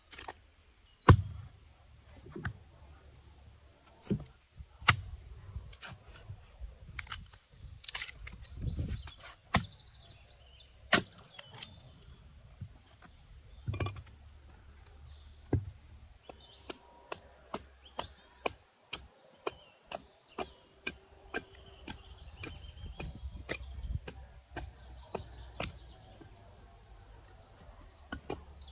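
Repeated sharp knocks, irregular at first, then a steady run of about two a second through the second half.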